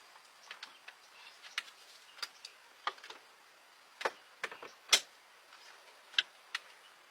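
A run of irregular sharp clicks and light knocks, about a dozen, the loudest a pair about four and five seconds in.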